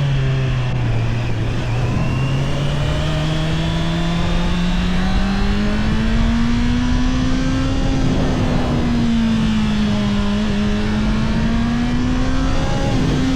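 Honda CBR650R's inline-four engine with its stock exhaust, running under way. Its pitch dips in the first second, climbs slowly for several seconds, eases off, then rises again near the end, over steady wind and road noise.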